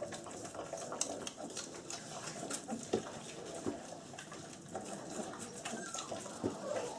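20-day-old German Shepherd puppies eating from a shared bowl: a steady patter of wet smacking and lapping with soft grunts and squeaks, and a short high squeak near the end.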